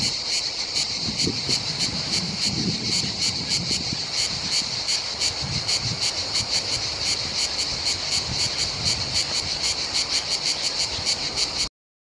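Grey cicada (Cicada orni) singing: a rhythmic song of short, sharp pulses, about three to four a second, that cuts off suddenly near the end.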